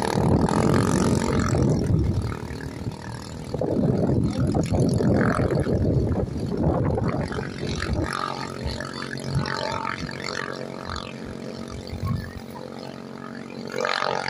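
Engines of two small racing boats, an 18 hp and a 15 hp, running flat out across open water in a test-run race, heard from the shore as a distant drone. Irregular low buffeting dominates the first half and eases to a steadier drone about eight seconds in.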